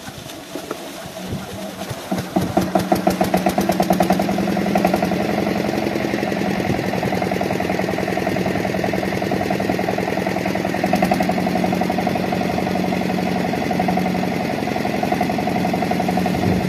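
Lister-type diesel engine on an irrigation water pump set starting up: a few uneven knocks as it turns over, then it catches about two seconds in and runs steadily with an even firing beat.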